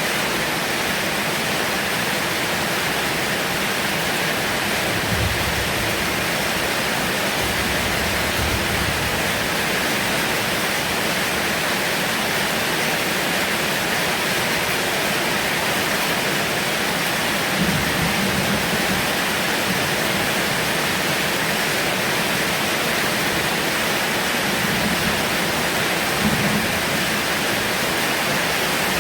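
Heavy rain falling steadily as a dense, even hiss, with a few brief low thuds, the loudest about 17 and 26 seconds in.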